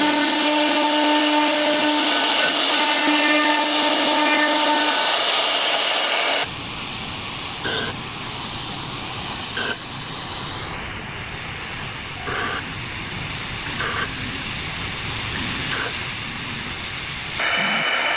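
CNC router spindle running and machining, a steady high whine with several tones over a hiss of cutting noise. The sound changes abruptly about six seconds in to a noisier cut with short repeated tone blips and a rising glide, then switches back to a whine near the end.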